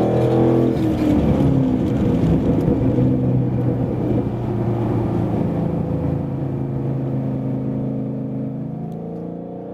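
2011–2014 Mustang GT's 5.0-litre V8 through a Borla aftermarket exhaust. The engine note drops in pitch in the first second, then settles into a steady drone that gradually fades away.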